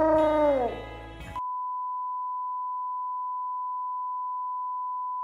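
Music sliding down in pitch and dying out within the first second and a half, then a steady, unwavering test-tone beep that runs on, the kind that sounds over colour bars.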